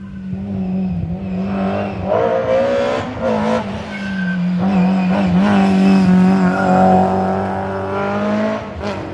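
Historic rally car engine running hard at high, fairly steady revs, with a couple of brief dips in pitch. It grows louder as the car approaches, peaks about seven seconds in, then eases.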